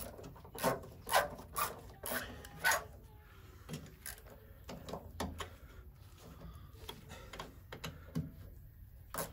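A run of sharp clicks and knocks, about two a second for the first three seconds, then fainter scattered ones and one sharp click near the end: tools and parts being handled during hand assembly work.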